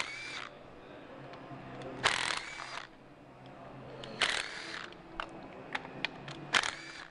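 A power ratchet whirring in four short bursts about two seconds apart as bolts are spun out of the engine, with small metallic clicks between the bursts.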